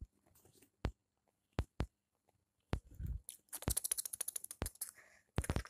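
A kitten scuffling with a hand on a quilted bedspread: scattered sharp taps, a soft thud about three seconds in, then a short burst of scratchy rustling of claws and fabric.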